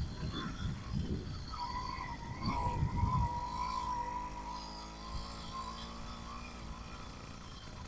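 Small engine of a motorized bicycle running, its pitch wavering and dipping a little as the throttle changes. Wind buffets the microphone in the first few seconds.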